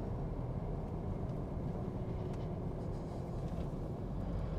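Steady low road and engine rumble of a moving vehicle, heard from inside the cab.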